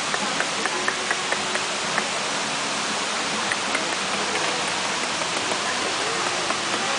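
Waterfall: a steady rush of falling water, dotted with many small ticks.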